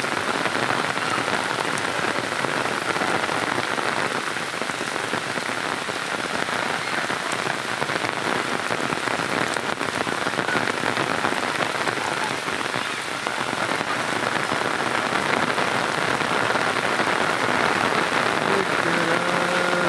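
Heavy rain falling on a flooded paved lane, a steady hiss of rain striking standing water.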